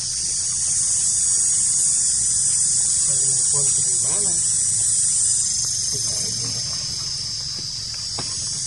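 Steady high-pitched insect chorus, easing off a little after about five seconds.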